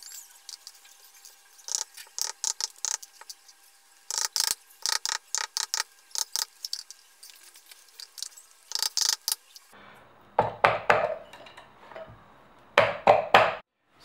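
Hands pressing and working a wheel cover onto a Xiaomi M365 Pro scooter's front wheel hub: clusters of short scraping clicks, then a few louder, duller knocks in the last few seconds.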